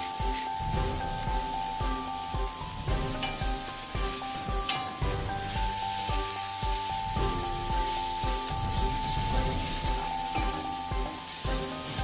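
Shredded cabbage and onion sizzling in a stainless steel frying pan while a spatula stirs and scrapes them, over background music.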